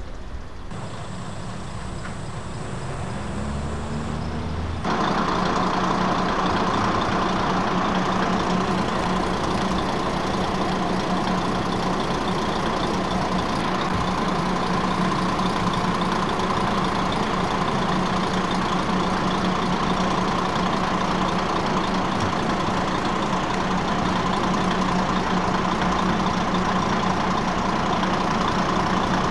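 Kiha 55-type diesel railcar's underfloor diesel engine idling steadily. For about the first five seconds it is fainter and farther off; then it is suddenly louder and close, a steady low drone with a thin whine above it.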